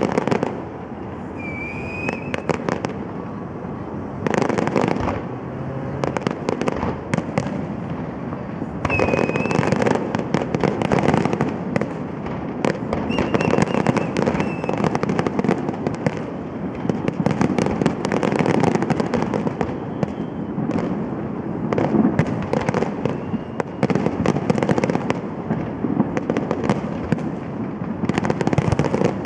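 Fireworks display: aerial shells bursting in a near-continuous string of bangs and crackles, with several denser volleys, the heaviest near the end.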